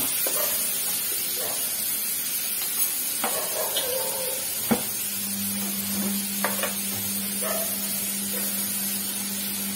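Marinated tandoori chicken pieces sizzling in hot oil in a frying pan, with a spoon scraping and tapping in the pan as oil is spooned over them. A sharp knock comes about halfway, and a steady low hum sets in just after it.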